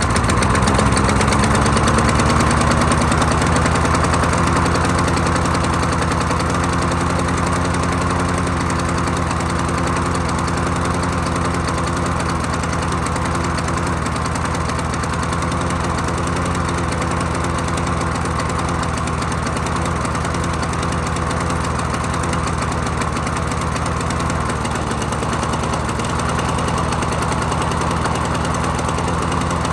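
Troy-Bilt push mower's small engine running steadily just after catching on a squirt of gas primed into it. Its pitch rises over the first couple of seconds as it comes up to speed, then holds.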